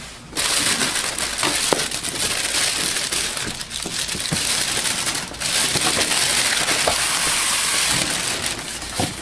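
Plastic packing bag and a paper sheet crinkling and rustling as they are handled inside a cardboard box with styrofoam packing, a dense rustle with brief lulls about four and five seconds in.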